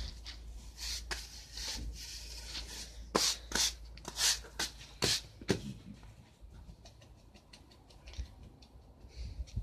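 Push broom bristles scraped across a concrete patio in short, quick strokes, about a dozen over the first six seconds, then only faint scuffs.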